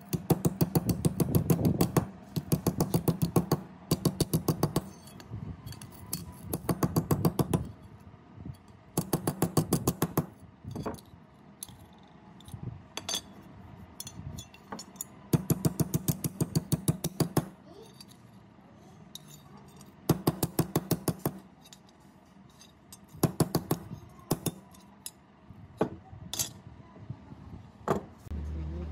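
Hammer blows on a metal saw handle plate resting on a steel block anvil, shaping and flattening it. The blows come in quick runs of about seven strikes a second, each run lasting one to two seconds, with single ringing strikes between the runs.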